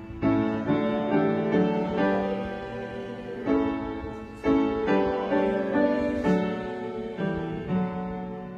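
Piano playing a slow piece in full chords. Each chord is struck every second or two and left to ring down before the next.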